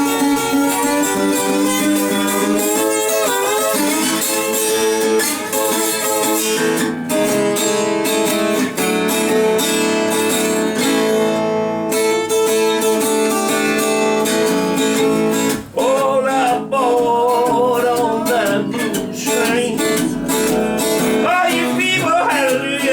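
Acoustic guitar playing an instrumental break in a blues song, a mix of picked and strummed notes.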